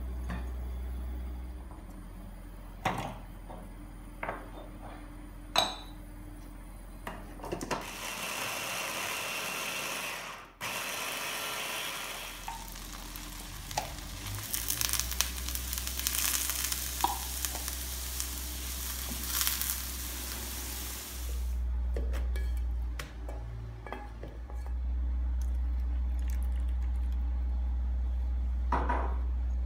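Butter and finely chopped onion sizzling in a frying pan, stirred with a wooden spatula, for about a dozen seconds in the middle. Light knocks and clinks come before and after.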